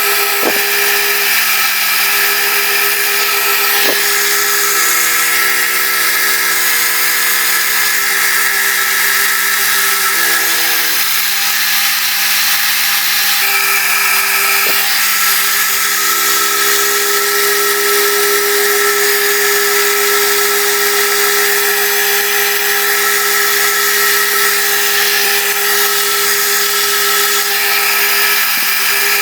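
Milling machine spindle running with a boring head cutting a hinge hole in a cupboard door: a steady machine hum with a high cutting hiss, its note shifting slightly a couple of times, with a few faint ticks.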